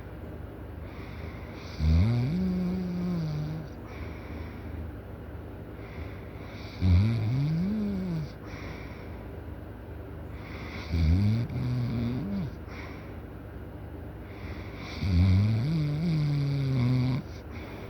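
Loud snoring: four snores about four seconds apart, each a drawn-out pitched note that rises and then falls.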